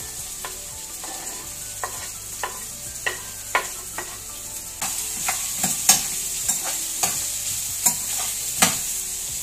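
Onion, capsicum, chilli and garlic stir-frying in hot oil in a kadai, sizzling steadily while a spatula clinks and scrapes against the pan at irregular moments about every half second. The sizzle gets louder about five seconds in.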